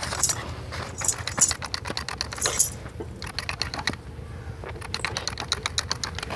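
Manual two-handled hand clipper snipping through a goat's hair: a rapid run of small metallic clicks, pausing briefly about halfway through.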